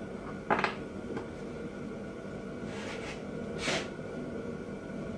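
Tools and parts being handled on a workbench: a short sharp knock about half a second in, a faint tick, then two soft scrapes or rustles, over a steady background hum.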